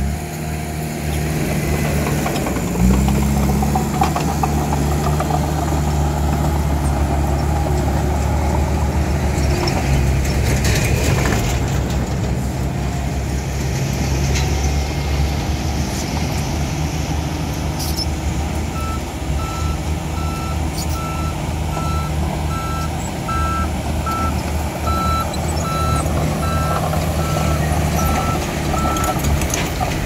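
Komatsu D31P crawler dozer's diesel engine running steadily under load as it pushes soil, picking up about three seconds in. From about two-thirds of the way in until near the end, a reversing alarm beeps about twice a second.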